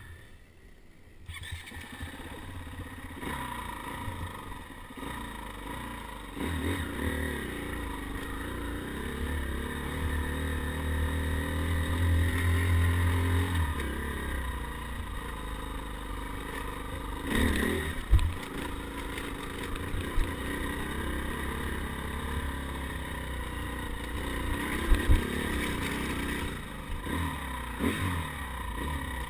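KTM dirt bike engine heard from the rider's helmet, revving up and down as it climbs a rough dirt trail. A few sharp knocks come from the bike over the rough ground, the loudest about two-thirds of the way through.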